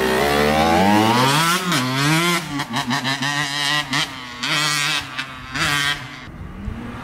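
Suzuki two-stroke dirt bike revving and pulling away, its pitch climbing and dropping through several gear changes. Near the end it turns choppy on and off the throttle and gets fainter as the bike rides off.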